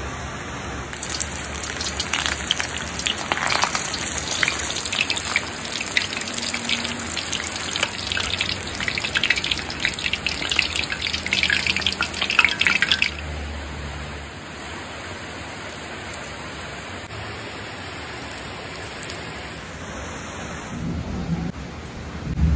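A banana-leaf-wrapped block deep-frying in a wok of hot oil, sizzling with dense crackling pops; the crackle stops abruptly about 13 seconds in, leaving a quieter hiss. A few soft knocks come near the end.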